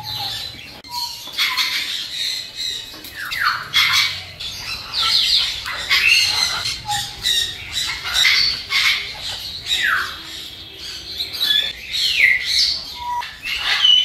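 Parrots squawking: repeated harsh, shrill calls through the whole stretch, several with quick falling sweeps.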